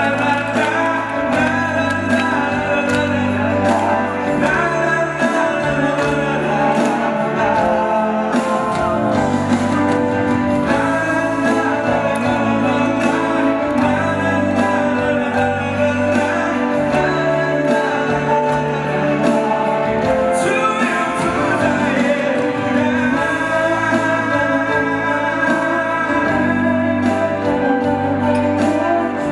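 Male singer singing a song into a handheld microphone over amplified musical accompaniment with a steady beat.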